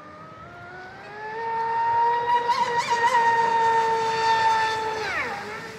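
High-pitched electric whine of a Proboat Supersonic Wake 48 RC speedboat's TP4090 730kv brushless motor on a speed run, its ZTW 300A ESC set to 15 degrees timing. The whine climbs in pitch over the first second or so, holds steady and loud, then drops sharply in pitch about five seconds in.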